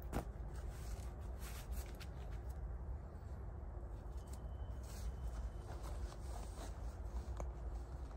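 Work gloves being pulled onto the hands: soft rustling and scratchy handling noises with scattered small clicks, over a low steady rumble.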